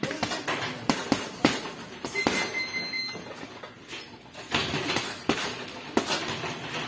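Gloved punches landing on a hanging teardrop heavy bag: a run of irregular sharp thuds, several in quick succession in the first second and a half, then more spaced.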